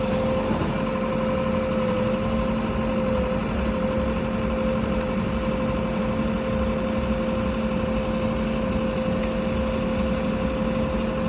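A heavy vehicle's engine running steadily at constant speed, with a steady hum.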